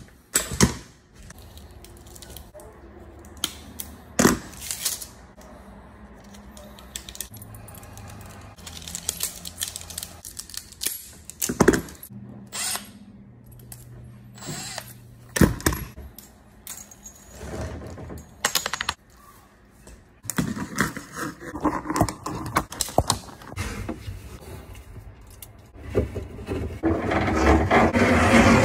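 Metal clinking and rattling from handling flexible metal-armored electrical cable and metal electrical hardware, with several sharp knocks spread through and a busier stretch of clatter near the end.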